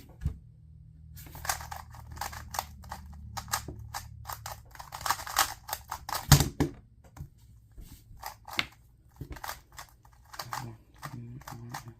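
Plastic 2x2 speed cube being turned fast, its layers clacking in quick irregular runs of clicks, with one louder knock about six seconds in.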